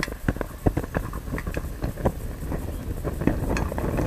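Molten aluminum pouring onto a fidget spinner in a cast-iron pan, with irregular sharp pops and crackles as the spinner catches fire. A rushing hiss of flame builds up near the end.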